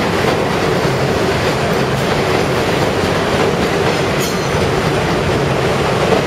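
Elevated subway train rolling past on the steel el structure: a steady loud rumble and clatter of wheels on rails as the cars go by.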